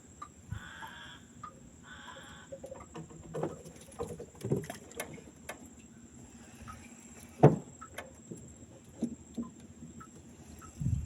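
Scattered knocks and thumps, with one sharp, loud knock about seven and a half seconds in, over a steady thin high-pitched whine.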